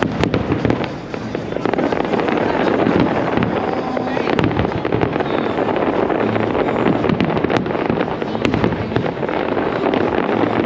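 Large fireworks display: a continuous barrage of bangs and crackling.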